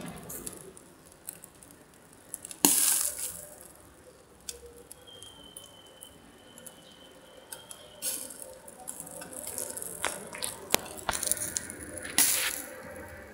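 Charcoal fire under grilling fish crackling, with scattered sharp snaps and pops and a few brief louder hissing bursts.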